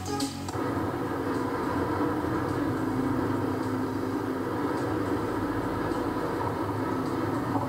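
Steady rumble and hiss of a car on the move, road and engine noise, starting abruptly about half a second in.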